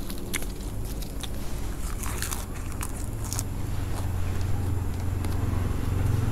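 Close-up crunching and chewing of crisp fried spring rolls eaten with fresh leaves, with sharp crackles over the first few seconds. From about three seconds in, the low rumble of a passing car builds underneath.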